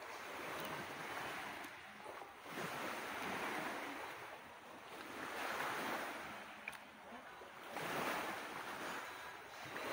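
Waves washing onto the shore, the surf swelling and falling every two to three seconds.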